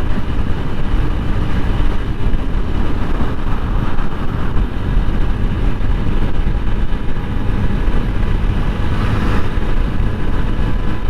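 TVS Apache 160 4V single-cylinder motorcycle engine running steadily on the move, with a tappet noise from the engine that the rider puts down to tappets left loose after the engine was opened up.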